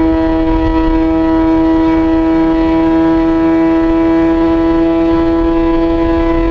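Yamaha XJ6 S inline-four engine through an SC-Project exhaust, cruising at steady revs: a constant engine drone that holds one pitch, over low wind rumble.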